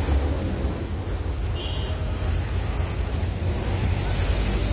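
Steady low engine rumble, with a brief high chirp about a second and a half in.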